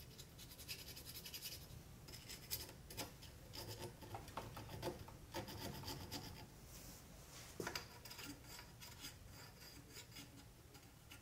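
A small curved file scraping inside the magazine tube of a GForce Arms GF1W 12-gauge shotgun in a series of short, irregular strokes, taking out burrs left from the shell stopper so shells will slide through freely.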